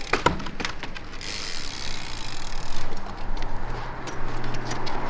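Trials bike tyres knocking on a wooden-board ledge top: a thump as the bike lands on the ledge after a bunny hop, then a run of quick knocks about three seconds in as the front wheel is hopped repeatedly along the boards (nose dribbling).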